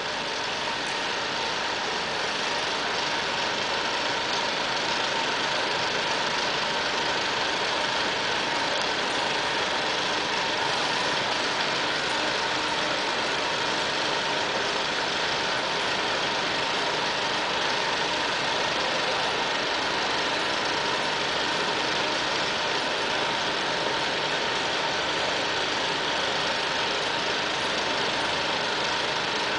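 Motorised hoists running steadily as they lift a lighting truss: an even mechanical hum and hiss with a faint constant tone, building up slightly in the first few seconds.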